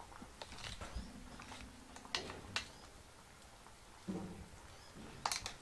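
Quiet kitchen handling noise: a few scattered light clicks and taps, with a faint low hum for about a second and a brief low murmur near the end.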